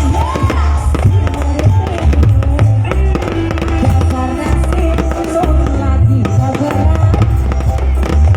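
Fireworks banging and crackling over loud live band music played through a sound system, with a heavy, steady bass beat.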